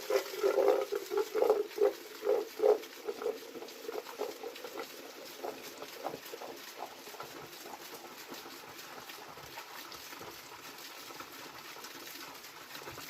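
Steady rushing of a waterfall, with a quick run of short, loud pulses in the first three seconds that thins out into faint scattered ticks.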